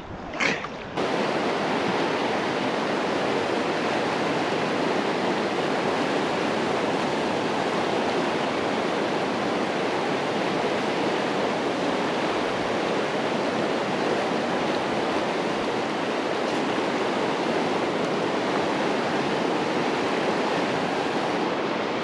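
Mountain stream rushing over rapids, a steady, even rush of water that starts about a second in and does not change.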